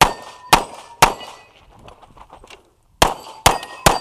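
Six pistol shots in two quick strings of three, about half a second apart with a two-second pause between the strings. Each shot is followed by the ringing clang of steel targets being hit.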